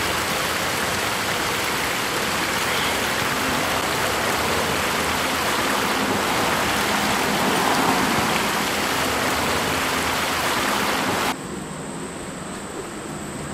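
Steady rushing noise, like running water or wind, that cuts off abruptly about eleven seconds in. What follows is quieter, with a thin steady high drone of insects.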